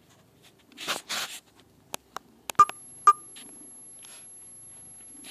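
A cat scuffling and kicking at a shammy towel, a short burst of rustling about a second in with a few light clicks, then two short, loud electronic beeps about half a second apart, followed by a faint steady high-pitched whine.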